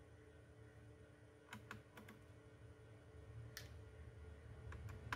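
Faint, scattered light clicks and taps of small hand tools and fingers on a laptop's motherboard and plastic chassis during disassembly, over a low steady hum.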